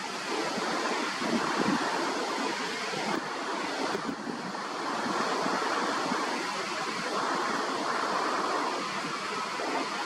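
Steady rushing noise of flowing water, even and unbroken.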